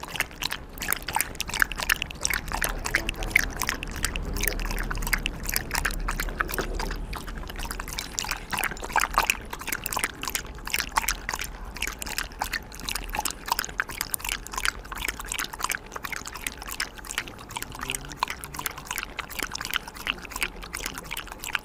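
Corgi lapping milk from a small glass bowl: a quick, even run of wet tongue laps.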